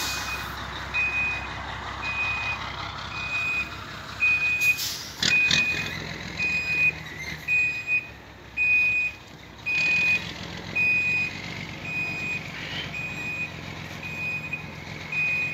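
Vehicle reversing alarm beeping steadily about once a second, over heavy engines running, during a lift of a shipping container with two forklifts. A couple of sharp knocks sound about five seconds in.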